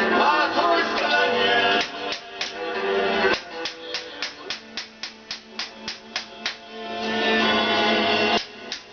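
Background music, an instrumental stretch of a song with a steady beat of about three sharp hits a second through the middle.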